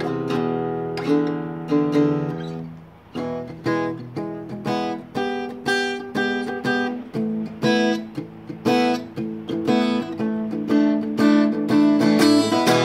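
Acoustic guitar played by hand: a chord rings and fades out about three seconds in, then a run of single plucked notes and chords, picked a couple of times a second.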